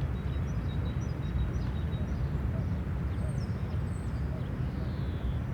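City park ambience: a steady low rumble of distant traffic under scattered chirps and short calls of small birds.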